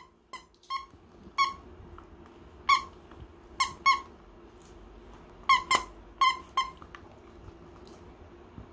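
Squeaker inside a plush dog toy squeaking as a dog bites down on it: about ten short squeaks at an uneven pace, several in quick pairs.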